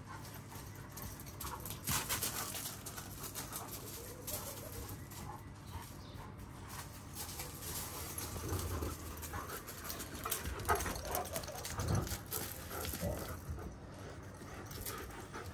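Young Kangal dogs making occasional short, quiet sounds as they move about, a little louder a couple of seconds in and again near the two-thirds mark.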